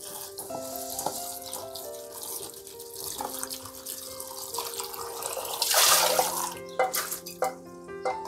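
Kitchen tap running into a steel bowl as green chillies are rinsed by hand, the splashing loudest about six seconds in, with a few sharp clicks after it. Background music with a simple melody plays under it.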